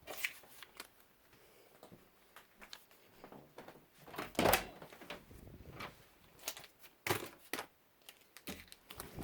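Plastic Lego pieces being handled and fitted: scattered sharp clicks and light knocks, with a louder clatter about four and a half seconds in.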